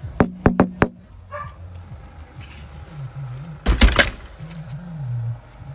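Dog barking: a quick run of short sharp barks in the first second, then a louder bark a little under four seconds in.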